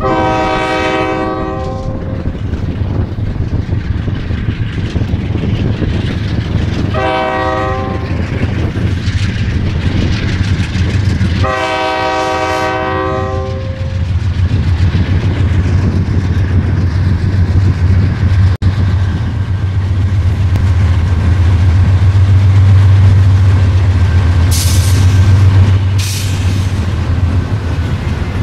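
Air horn of a CSX freight train's lead GE diesel locomotive sounding three blasts, long, short, long, for a grade crossing, over the low rumble of the two GE locomotives' diesel engines. The rumble grows loudest as the locomotives pass close, with two brief high hisses near the end.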